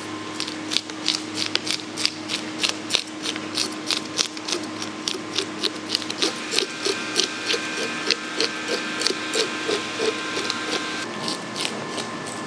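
Metal fish scaler scraping the scales off a whole grey mullet on a wooden board, in quick repeated strokes of about three a second.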